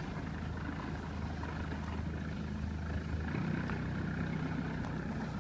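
An engine running steadily with a low hum, its note shifting slightly about three seconds in.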